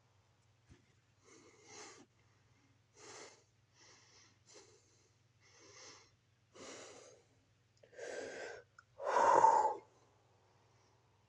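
A person breathing hard while holding a plank: short heavy breaths about once a second, getting louder toward the end, the loudest one just before the last second.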